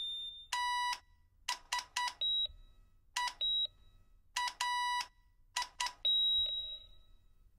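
Morse code sent as electronic beeps: a buzzy tone keyed in long and short beeps in an uneven pattern, with a few higher, thinner beeps in between.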